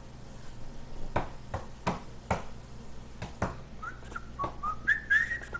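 A run of short whistled notes stepping up and down in pitch, starting a little under four seconds in, after a few faint sharp clicks.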